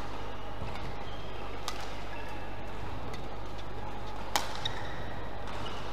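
Badminton rally: racket strikes on the shuttlecock, one about a quarter of the way in and a louder one, a jump smash, a little after four seconds, with short shoe squeaks on the court over a steady hall hum.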